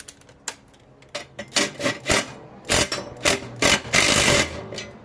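Ratchet wrench with a 14 mm socket working a mower blade nut: several separate metallic clicks and knocks, then a quick run of ratchet clicking near the end.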